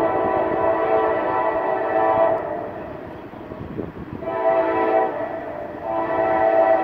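Air horn of an approaching Norfolk Southern freight locomotive, sounding several notes at once in three blasts: a long one, a short one about four seconds in, and a third starting near the end.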